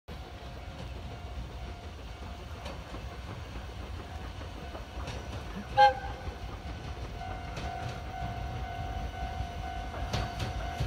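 Chichibu Railway Deki 500-class electric locomotive hauling a freight train, approaching with a low rumble that slowly grows louder. The locomotive's horn gives one short blast about six seconds in. A steady high tone holds from about seven seconds on.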